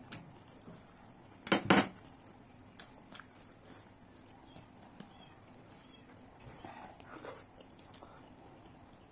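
Close-miked mukbang eating sounds: a person chewing rice and chicken curry eaten by hand. There are two loud, sharp mouth noises in quick succession about one and a half seconds in, scattered small clicks, and a softer cluster of mouth sounds around seven seconds.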